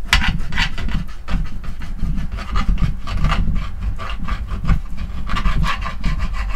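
Knife sawing back and forth through a whole raw eel to cut it in two, in quick rasping strokes of about three to four a second over a low steady rumble.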